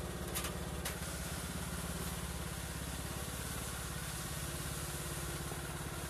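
Riding lawn tractor engine running steadily as the tractor reverses across gravel, back-dragging with its homemade loader bucket lowered. There are two short clicks about half a second and a second in.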